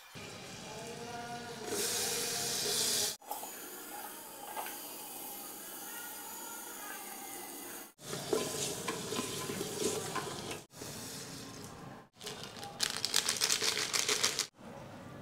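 Butter and then chopped vegetables sizzling in the hot bottom of a stainless-steel electric kettle, with a wooden spatula stirring them, broken by several abrupt cuts; near the end comes a burst of rapid crackling.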